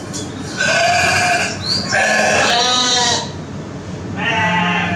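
Recorded sheep bleating: several long, wavering bleats in a row, the first about half a second in and the last starting near the end.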